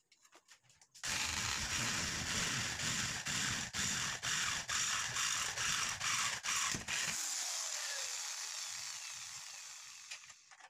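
Corded electric drill boring a hole through aluminium square tubing: the motor and bit run loudly for about six seconds with brief dips in level, then the drill spins down, its pitch falling and fading over the last few seconds.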